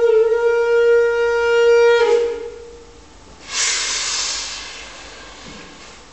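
A small wind instrument held in cupped hands at the mouth sounds one long steady note and stops about two seconds in. About a second later a short rush of hiss-like noise comes in and fades away.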